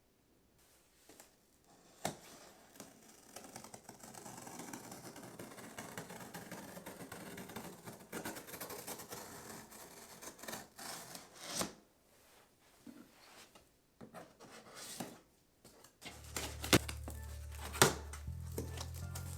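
Cardboard packaging being handled and opened: rubbing and scraping with sharp clicks and knocks. About three-quarters of the way through, a low bass line of background music comes in.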